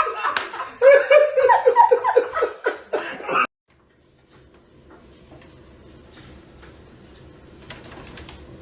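A person laughing hard in quick repeated high-pitched bursts, which cut off abruptly about three and a half seconds in. Faint low background noise with a few light ticks follows.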